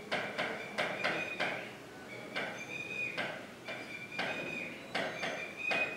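Marker pen writing on a whiteboard: a string of short ticks and brief squeaks as the tip is drawn through each stroke, one to two strokes a second.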